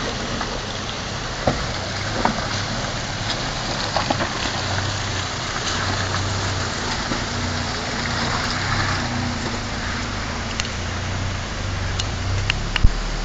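Steady rush of river water, with a 4x4's engine running low underneath and a few sharp knocks, the loudest near the end.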